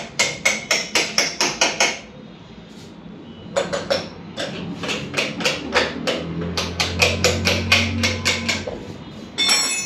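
Hammer striking metal in quick, sharp blows, about five a second: a run of about ten, then after a short pause a longer run, with a low hum under the later blows. A short, louder clatter comes near the end.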